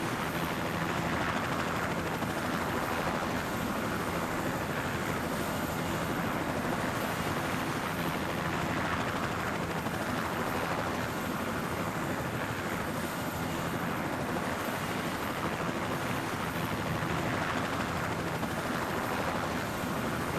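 Helicopter running steadily overhead: a constant rush of rotor and engine noise.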